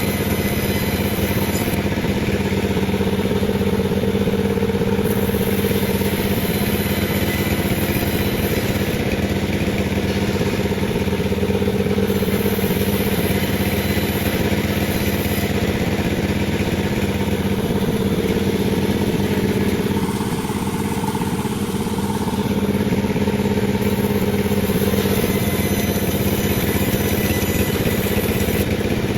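Panda36 two-stroke chainsaw running at high speed as it cuts lengthwise through a durian log, easing off briefly about two-thirds of the way through before returning to full speed.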